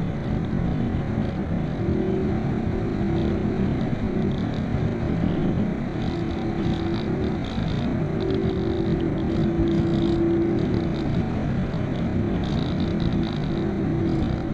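Steady rush of airflow around a glider in flight, heard from on board. A faint, low humming tone comes and goes several times over it.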